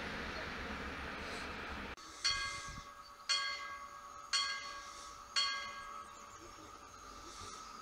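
A steady rushing rumble from a diesel railcar stops abruptly about two seconds in. Then a bell rings four times, evenly about a second apart, each strike dying away, leaving a faint steady tone.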